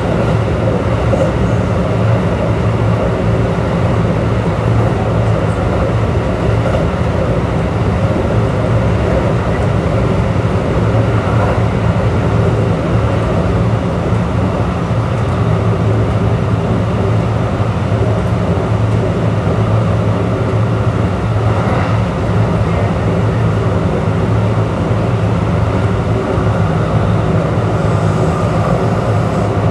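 A Kintetsu 3200 series electric train running at steady speed, heard from inside at the end of a car: a continuous rumble of wheels on rail under a steady, level hum. Air conditioning is fairly loud.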